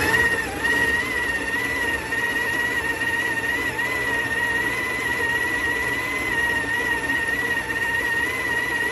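Breville Smart Grinder Pro's burr grinder motor grinding coffee into a portafilter for a timed espresso dose, a steady high whine over the gritty hiss of the beans being ground.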